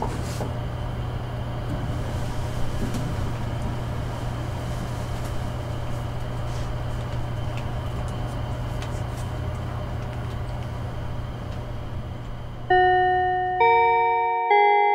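Steady low hum inside an elevator car. Near the end, bell-like chime notes start, struck about once a second at changing pitches, each ringing out.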